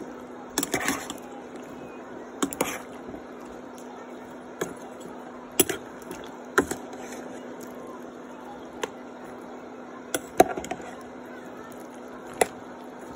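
Metal spoon stirring sliced upo (bottle gourd) and pork in a stainless steel pan, clinking and scraping against the pan every second or two, over a steady low hum.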